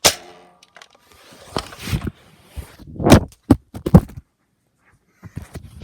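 A toy foam-dart blaster fires with a sharp snap that rings briefly. It is followed by a run of loud knocks and thumps, with the loudest about three to four seconds in.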